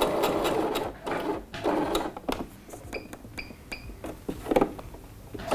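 Domestic sewing machine stitching a waist seam at steady speed, stopping about a second in, then a few single knocks as it is brought up to the notch mark with the needle left down, ready to pivot the fabric.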